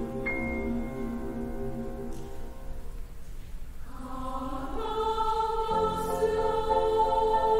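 A student mixed choir singing a slow piece with piano accompaniment in a concert-hall recording. The held chords thin out and quieten a couple of seconds in, then the voices come back in about four seconds in and swell louder.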